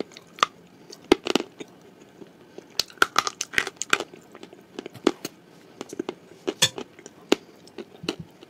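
Close-miked chewing of a crunchy mouthful of edible clay, with sharp, irregular crunches and clicks.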